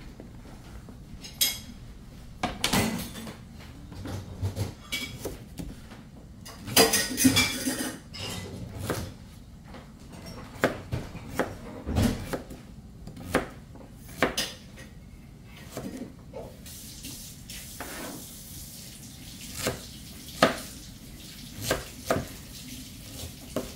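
Kitchen knife chopping raw turnip on a plastic cutting board: irregular knocks about once a second, with a longer clatter about seven seconds in. A faint steady hiss joins from about two-thirds of the way through.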